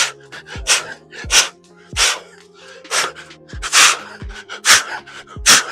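A man's sharp, forceful exhales in a steady rhythm, about one and a half a second with a brief pause midway, as he breathes hard through a set of exercise reps. Background music plays underneath.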